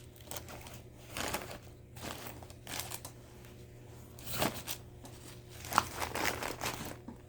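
Irregular crinkling and rustling of bag contents being handled and pulled out of a backpack, with a sharper rustle about six seconds in.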